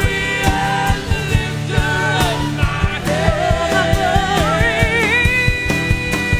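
Worship song played by a band, with a steady drum beat and bass under a sung melody that holds a long wavering note near the end.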